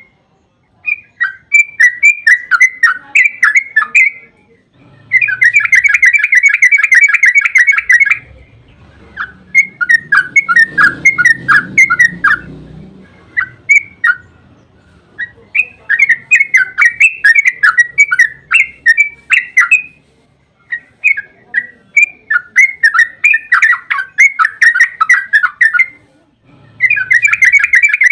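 Yellow-vented bulbul (trucuk) singing in rapid chattering phrases of a few seconds each, broken by short pauses; some phrases run into dense, fast continuous trills, the long 'ropel' song.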